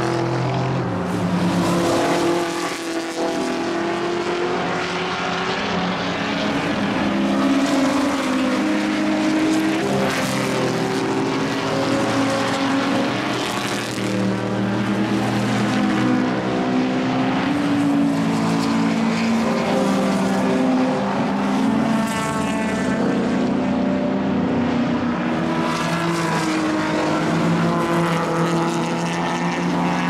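Historic race cars passing in a close stream through a corner, their engines running hard at high revs. Several engine notes overlap, and the pitch rises and falls as each car goes by.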